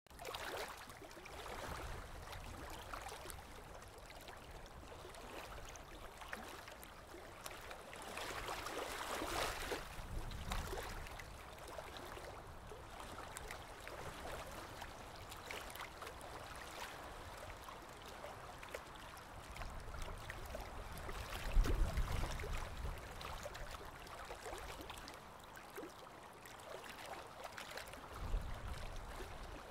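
Faint water trickling, a steady low hiss of flowing water, with a few short low rumbles, the loudest about two-thirds of the way through.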